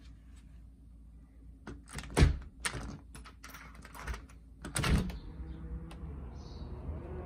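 Front door deadbolt and lever handle clicking and clunking as the lock is turned, with a louder clunk about five seconds in as the door is pulled open. A steady outdoor hum comes in once the door is open.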